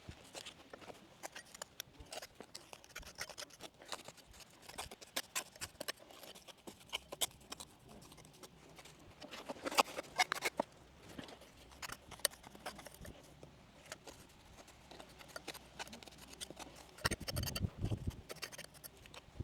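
Scattered small scrapes and clicks of hand tools working lime mortar into a stone wall, busier about ten seconds in and again near the end.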